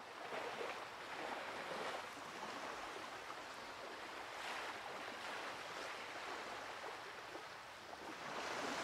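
Ocean surf: waves rolling in and breaking in a steady wash of noise that swells and eases every few seconds.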